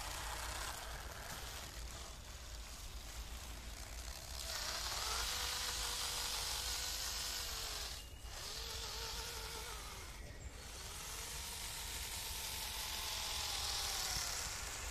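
Electric motor and 3D-printed gear drivetrain of an RC truck whining, the pitch rising and falling with the throttle in three spells from about a third of the way in. It cuts out briefly twice, with a high hiss over the whine.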